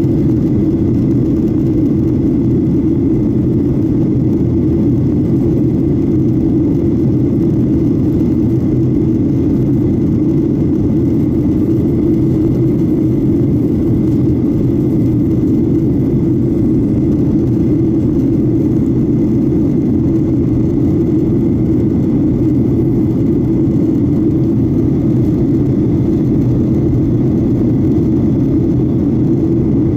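Steady roar of a twin-engine jet airliner's engines and rushing air, heard inside the passenger cabin as it climbs out after take-off, with a faint steady high whine over it.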